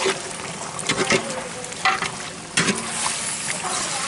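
Chicken pieces sizzling in hot onion-tomato masala in a large aluminium cooking pot, while a long metal ladle stirs them and scrapes and knocks against the pot several times.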